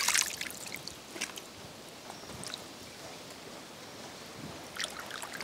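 Faint water splashing and dripping, with scattered light ticks over a low hiss; a brief louder splash right at the start and a small cluster of ticks near the end.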